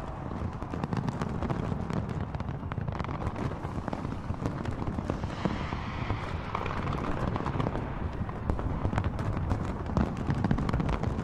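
A fireworks display in full barrage: rapid, continuous crackling of many bursts over a steady low rumble of aerial shells going off.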